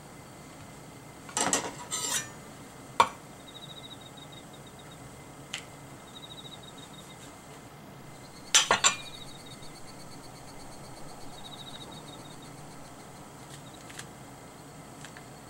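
Kitchen knife cutting through mushroom stems onto a wooden cutting board: a few sharp knocks of the blade on the board, in small clusters about a second and a half in and again past eight seconds, with single taps between.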